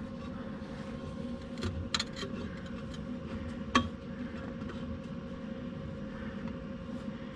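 A few light metallic clicks and taps as a welded steel exhaust crossover pipe is handled and checked for fit under the car, the sharpest near the middle, over a steady low background hum.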